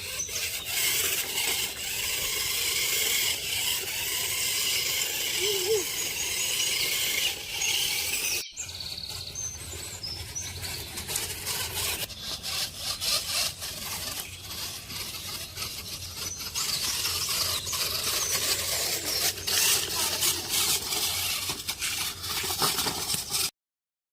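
Small geared DC motors of a homemade six-wheel RC car running, with a high squealing, rubbing noise. The sound shifts abruptly a few times and cuts off suddenly at the very end.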